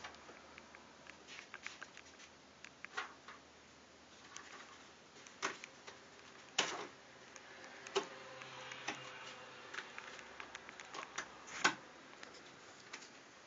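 Home button of a Samsung Galaxy Note phone being pressed over and over, giving sharp clicks at irregular intervals, a couple of them louder than the rest. The click is an unwanted noise that the owner hears on every press, even a light one that does not activate the button.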